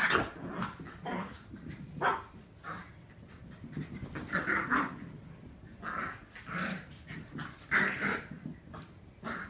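Two Yorkshire terriers play-fighting, making short bursts of dog vocal sound every second or two, loudest at the start and again near the end.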